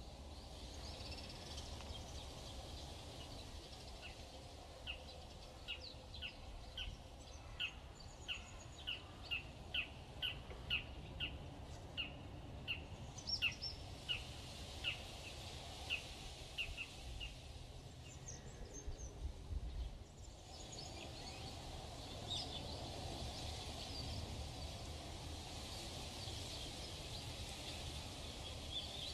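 A bird calling a long run of short, high, downslurred notes, about one or two a second, from about five seconds in until past the middle, with fainter scattered chirps of other birds over a steady low outdoor rumble.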